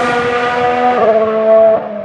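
Ferrari Formula 1 car's 1.6-litre turbocharged V6 hybrid power unit running at high revs, a steady engine note that steps in pitch about a second in, then drops sharply in loudness near the end.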